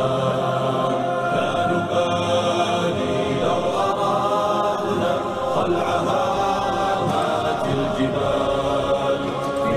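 Background music: an Arabic nasheed sung by a choir of voices, holding and gliding between notes at a steady level.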